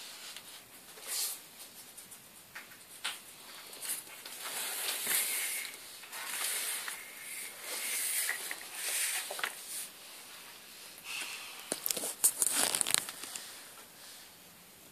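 Paper wing feathers of painted recycled paper rustling and crinkling as the wings are lifted and handled, in uneven scratchy bursts with a few clicks; the loudest cluster comes near the end.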